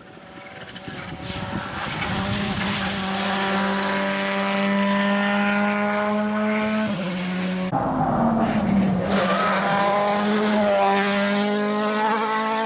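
World Rally Car's 1.6-litre turbocharged four-cylinder engine running hard at high revs, holding one steady high note. About eight seconds in the note breaks off and drops in pitch, then settles into a steady high note again.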